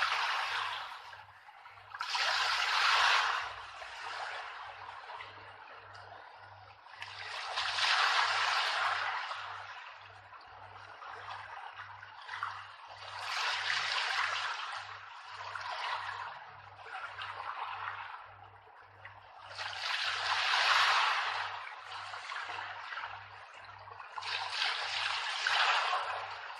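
Rushing, water-like noise that swells and fades about every six seconds, over a soft low pulse repeating about one and a half times a second.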